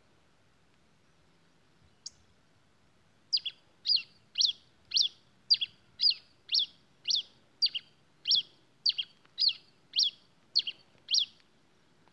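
Grey pileated finch (tico-tico-rei-cinza) singing: one short high note about two seconds in, then a run of about fifteen quick notes, roughly two a second, each falling in pitch.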